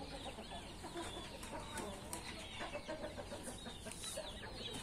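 Chickens clucking faintly, with many short high chirps mixed in.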